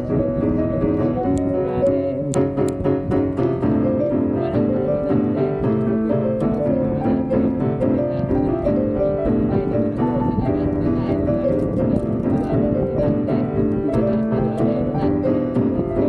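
Piano-like keyboard playing a song, with chords and a melody moving steadily.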